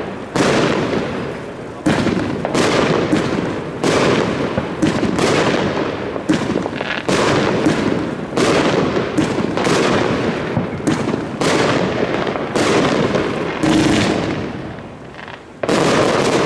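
Consumer firework battery (cake) firing aerial shells: a rapid string of launch thumps and bursts, one or two a second, each trailing off. A short lull comes near the end, then a loud burst.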